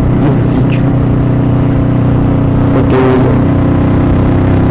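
Motorcycle engine running at steady revs on the move, with wind rumbling on the microphone.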